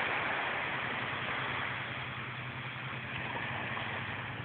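Small waves washing onto a beach: a steady hiss of surf that eases slightly, with a faint low hum underneath.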